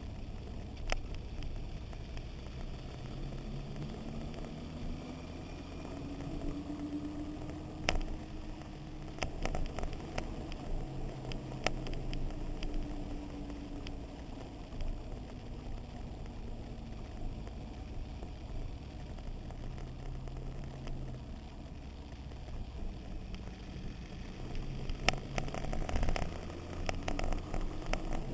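Motorcycle engine running at road speed on a group ride, its pitch slowly rising and falling with the throttle, over a steady low rumble of wind on the microphone. A few sharp clicks or knocks come in clusters, about eight to twelve seconds in and again near the end.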